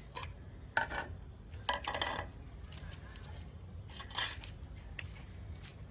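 Cutlery and dishes clinking and clattering during a meal, a few short knocks spread out, over a steady low rumble.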